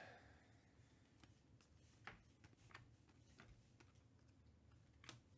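Faint, irregular clicks of stiff chromium Prizm trading cards being slid off a stack one at a time in the hand, with near silence between.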